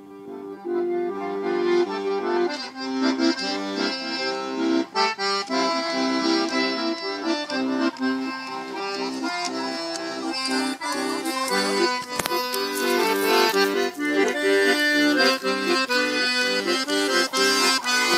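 Piano accordion played live, a lively tune with a steady rhythm, swelling louder about a second in.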